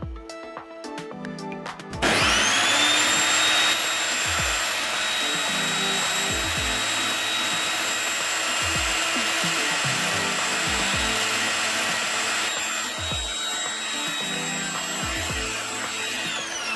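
Table saw motor switching on about two seconds in with a quick rising whine, then running steadily at speed while wooden cabinet-door frames are fed across it, and starting to wind down with a falling whine near the end. Background music with a slow beat plays underneath.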